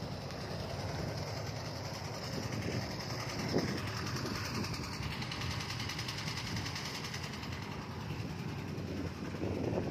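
JCB 3DX backhoe loader's diesel engine idling steadily, with a brief knock about three and a half seconds in. Wind buffets the microphone near the end.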